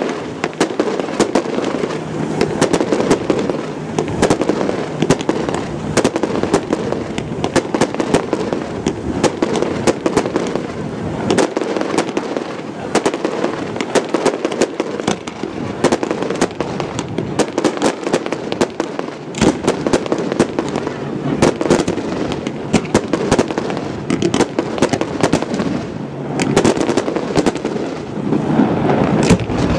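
Aerial fireworks shells bursting in a dense, continuous run of bangs and crackles, with many sharp reports every second.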